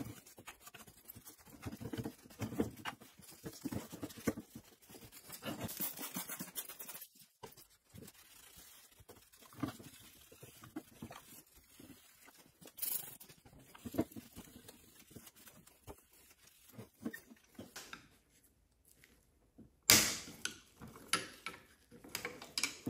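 A rag scrubbing and wiping the plastic housing of a chainsaw: irregular rubbing and scuffing, with light knocks as the saw is turned over on a wooden bench. Near the end there is a brief quiet, then one sharp, loud knock and more handling noise.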